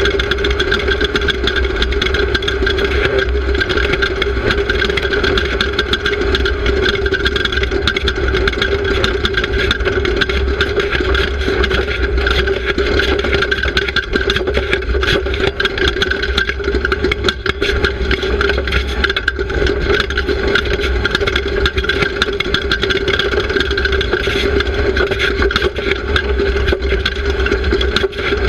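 Off-road race car's engine running steadily, heard from onboard the car, with a constant clatter of rattles and knocks over a deep rumble.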